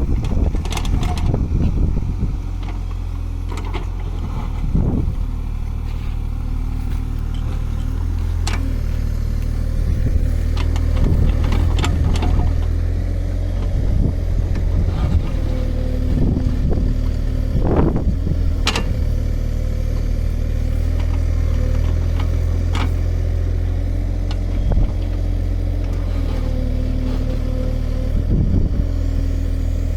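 Kubota mini excavator's diesel engine running steadily, with scattered sharp knocks and clicks over the drone.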